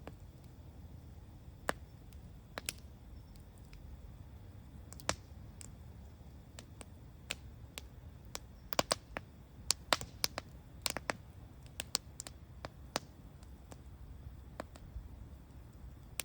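Wood campfire crackling: irregular sharp pops and snaps, scattered at first and coming thick and fast in the middle, over a low steady rumble.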